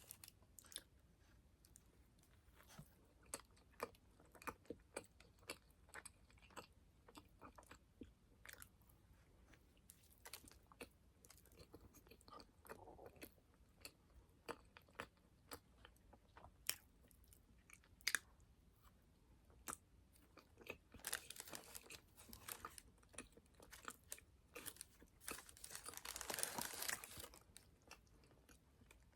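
Close-miked eating of doughnuts: chewing and biting, with many small sharp mouth clicks and occasional crunches. The sound is quiet, with a louder, longer stretch of about two seconds near the end.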